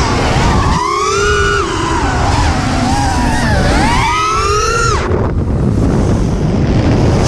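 FPV quadcopter's brushless motors whining, their pitch rising and falling with throttle, over wind rushing on the onboard camera's microphone. The motor whine cuts out briefly about five seconds in, then returns.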